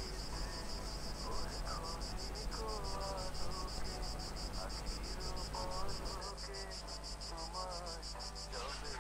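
Crickets chirping in rapid, even pulses that run on without a break, over a low steady electrical hum.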